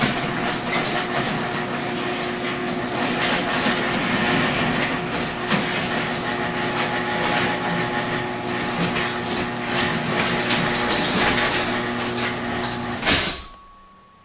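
Chamberlain Power Drive heavy-duty chain-drive garage door opener lowering the door: a steady motor hum with chain and door rattle for about thirteen seconds. It ends in a loud thud as the door closes, then the motor stops.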